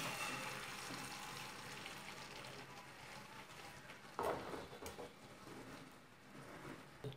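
Beaten egg sizzling faintly in a buttered steel frying pan on low heat just after being poured in, the sizzle slowly dying down as the egg spreads. A short louder sound about four seconds in.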